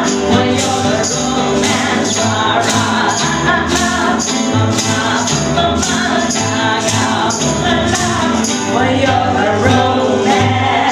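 Live acoustic band playing: a tambourine jingling on a steady beat over guitars and upright bass, with voices singing along.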